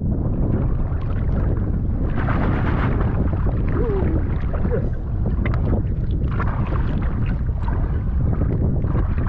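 Steady rushing noise of river water and wind buffeting the microphone as someone wades in a fast current, with a few small splashes.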